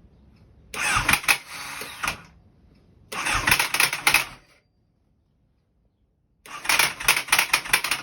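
Three attempts on the starter of a 2008 Honda CBR1000RR, each a burst of rapid mechanical clatter about a second and a half long. The engine does not catch on any of them.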